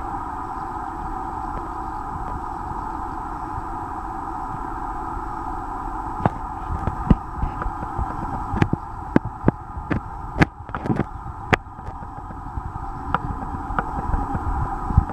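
Coypu chewing grass stems: sharp, irregular crunching clicks, starting about six seconds in and coming more often toward the end, over a steady background hum.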